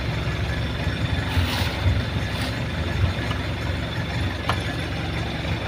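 Isuzu 4JG2 four-cylinder diesel engine idling steadily. It keeps running because the injection pump's magnetic switch (fuel-cut solenoid) has been condemned, so the engine cannot be switched off. A brief hiss comes about a second and a half in, and a single click comes later.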